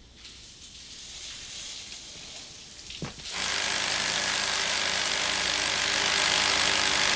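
A soft hiss grows for about three seconds. Then a power drill, used as a smoothie mixer, starts up and runs at a steady whir with a constant whine.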